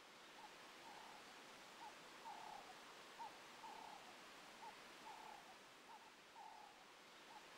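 Faint, steady series of soft calls, probably a bird, repeating about twice a second with quick and slightly longer notes in turn, over a quiet outdoor hiss.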